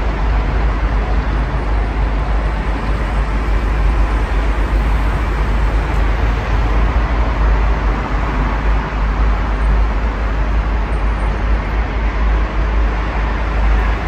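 Steady, even hum of city road traffic from a multi-lane road below, with a strong low rumble and no single vehicle standing out.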